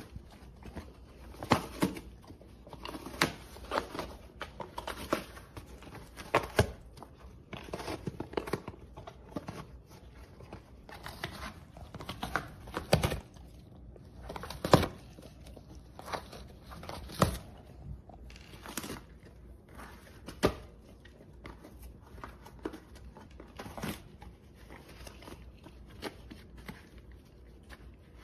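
A dog ripping and crumpling cardboard LEGO box pieces and plastic parts bags with its mouth: an irregular run of sharp tearing and crinkling noises, sparser and quieter in the last several seconds.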